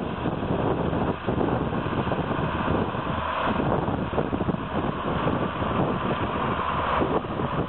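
Diesel engines of County 1174 tractors running steadily under load while ploughing, with wind buffeting the microphone.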